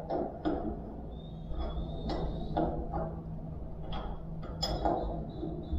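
Scattered light clicks and knocks of tools and engine parts being handled, over a steady low hum.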